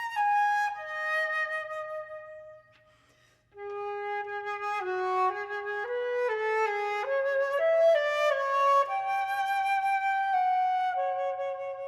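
Unaccompanied flute playing a slow melody of held notes. A phrase ends on a held note, there is a short pause about three seconds in, and then a new phrase of stepwise notes ends on a long held tone.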